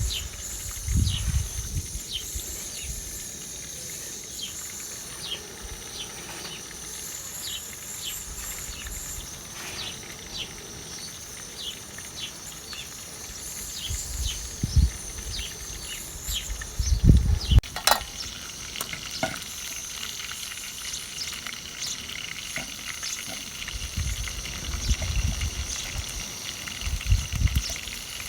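Food frying in oil, a steady sizzling hiss, with short bird chirps over it and a few low knocks.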